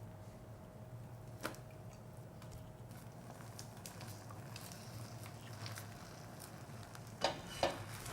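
Egg omelette cooking gently in a frying pan on low heat, with a faint crackle over a steady low hum. There is a single click about a second and a half in, and two louder sharp knocks near the end.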